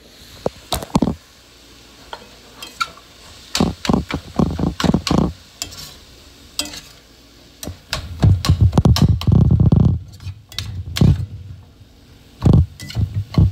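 Black plastic slotted spatula scraping and knocking against a stainless steel pan while stirring ground meat and chopped greens. It comes in short bursts of strokes, the busiest run a little past the middle.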